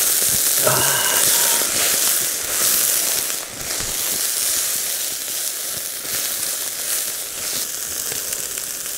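Seasoned horumon (offal) sizzling on a wire mesh grill over charcoal: a steady, loud hiss.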